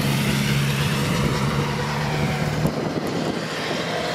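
Saab 2000 twin turboprop on short final, a steady propeller drone of several low tones over a broad rushing engine noise. The low tones drop away about two and a half seconds in as the aircraft flares over the runway.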